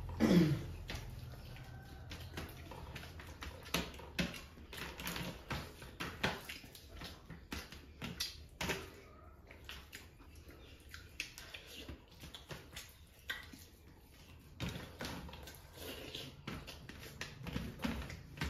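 Close-up eating sounds: wet chewing and lip smacking, with fingers squishing and scooping rice and curry on a steel platter, making a run of short irregular clicks and smacks. A brief falling tone sounds just at the start.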